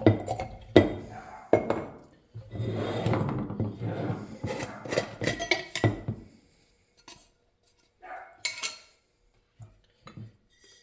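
Glass jar and metal frame of an antique Arcade Crystal coffee grinder clinking and scraping together as the glass is worked off, with a few sharp knocks at the start, a run of dense rattling in the middle, and light scattered clinks near the end.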